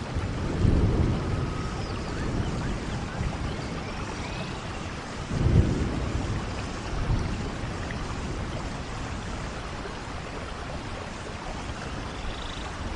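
Steady rain with thunder: a low rumble about a second in and a louder one about five and a half seconds in.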